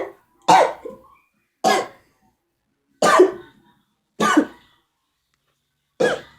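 A person coughing: five short, separate coughs, one every second or so, from a sore throat.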